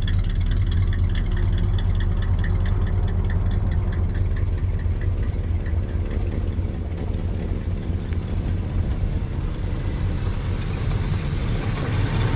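The 1968 Ford Thunderbird's 429 big-block V8 idles steadily on its own, with a deep, even rumble. A faint rapid ticking sits over it during the first half.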